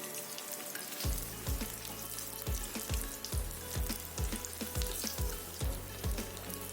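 Vegetable cutlets deep-frying in hot oil in a kadhai, a steady sizzle with fine crackles. About a second in, background music with a steady low beat of about two thumps a second comes in over it.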